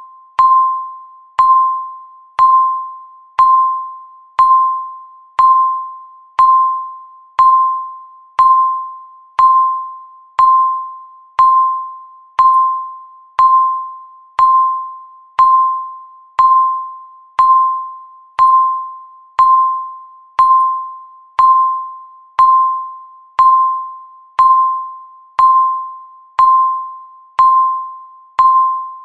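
Electronic countdown-timer beep sounding once a second: one short pure tone per second, each starting sharply and fading away, marking the seconds left on the count.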